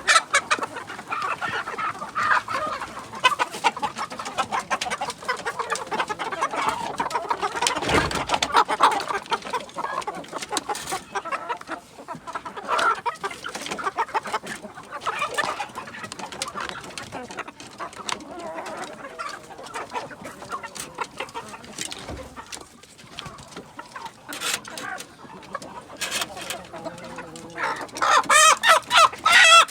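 A flock of Indonesian village chickens (ayam kampung) clucking continuously, with a louder run of calls near the end.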